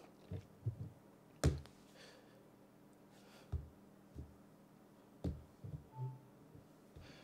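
Faint, scattered taps and clicks of a smartphone being handled and set down on a leather notebook cover, the sharpest about one and a half seconds in. A brief soft tone sounds about six seconds in, as the phone begins wireless charging.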